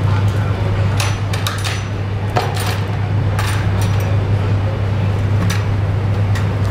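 A wooden transport case being handled as its cover is lifted off: a series of light clicks and knocks of wood and metal fittings over a steady low hum.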